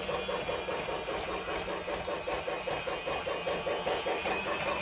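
Battery-powered toy trains running together, among them the Lionel Ready-to-Play Thomas, with rapid, even steam-chuffing sound effects from their speakers over the whir of their motors.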